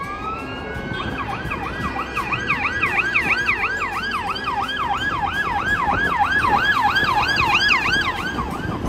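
Emergency vehicle siren: a rising wail that switches about a second in to a fast yelp, about three up-and-down sweeps a second. It grows louder toward the end and cuts off just before the end.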